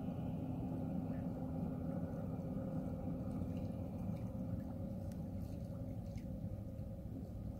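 A steady low mechanical hum with a few constant tones in it, like a motor running at an even speed.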